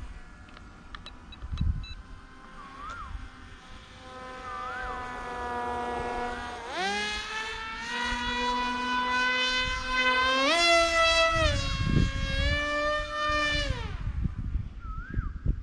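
Electric motor and propeller of a foam RC flying wing, a steady whine that climbs in pitch as the throttle opens about seven seconds in, rises again about ten and a half seconds in, then drops away near the end.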